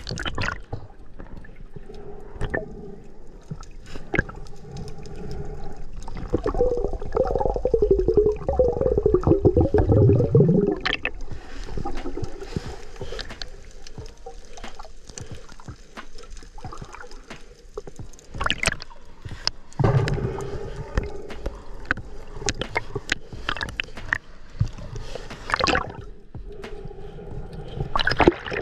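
Sea water gurgling and sloshing around the camera, with scattered sharp clicks throughout. A louder stretch of dense bubbling gurgle comes from about seven to eleven seconds in.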